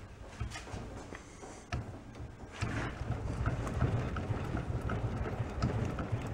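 A rusted, seized small engine block being worked back and forth by hand: a run of small metallic clunks and knocks that grows busier about two and a half seconds in, as stuck internal parts are forced to move.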